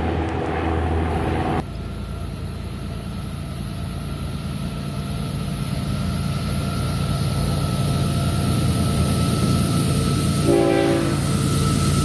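Diesel freight locomotives running steadily, with a short horn blast about ten and a half seconds in.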